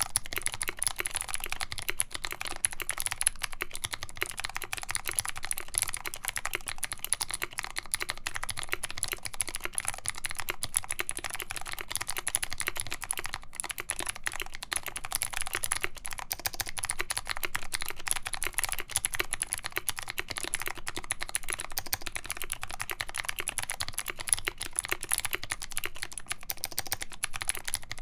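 Continuous fast typing on a mechanical keyboard with lubed Kailh Speed Gold linear switches, a full brass plate and PBT keycaps: a dense, unbroken stream of sharp key clacks.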